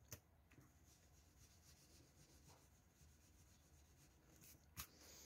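Near silence, with a few faint taps and scratches of a pencil on paper, once at the start and again near the end.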